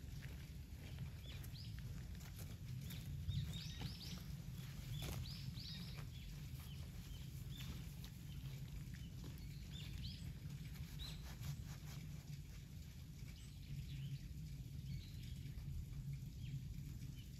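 Birds chirping, many short separate calls over a low steady rumble.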